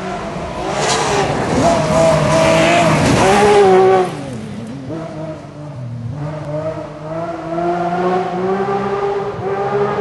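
Rally car at full speed on a gravel forest stage: engine at high revs with gravel rattling under the tyres as it passes close, cutting off sharply about four seconds in. Its engine then carries on more faintly, revving on into the distance.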